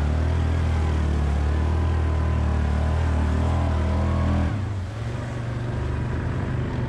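Yamaha 700 ATV's single-cylinder engine running steadily under throttle, then easing off and dropping in level about four and a half seconds in.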